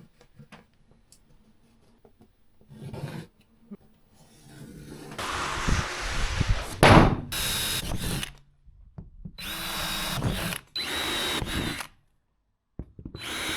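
Power drill drilling holes through a wall panel, running in several bursts with short pauses between them.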